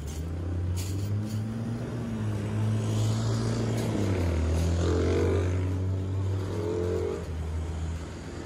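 Road traffic: vehicle engines passing along the street close by, building to a peak about halfway through and easing off near the end.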